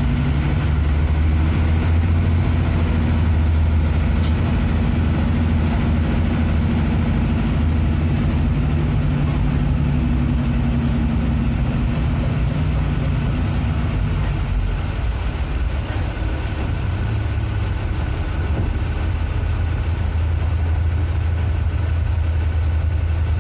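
City bus engine running, heard from inside the bus as a loud, steady low drone with road noise. Its note changes about two-thirds of the way through as the engine eases off.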